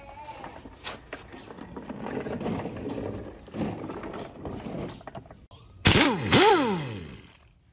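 Pneumatic impact wrench fired in two short bursts, one right after the other, near the end, each followed by the air motor spinning down in falling pitch. Before that comes a few seconds of quieter mechanical clatter.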